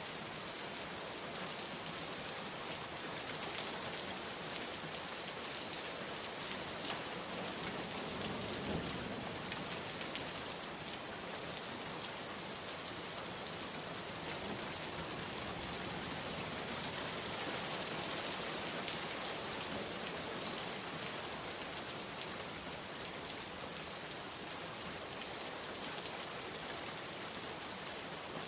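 Steady rain falling on a surface, an even hiss with fine drop ticks and a slight swell in intensity about eight seconds in.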